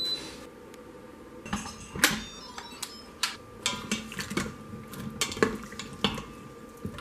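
Slotted plastic spoon scraping and knocking against the stainless-steel inner pot of an Instant Pot electric pressure cooker while cooked chestnuts are scooped out of the water: a string of irregular clinks and knocks, the sharpest about two seconds in. It opens on the tail of the cooker's high electronic beep.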